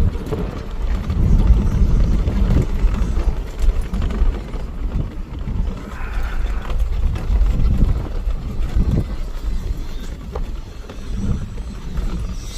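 Strong wind buffeting the microphone in an uneven low rumble, with a few faint knocks.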